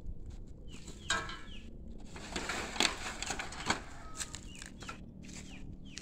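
Chicken clucking briefly about a second in, over a small bird's short falling chirps repeating about twice a second. Near the middle comes a rustle with two sharp knocks.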